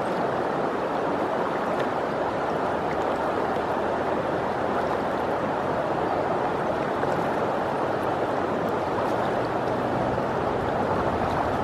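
Steady rushing of a river's flowing water.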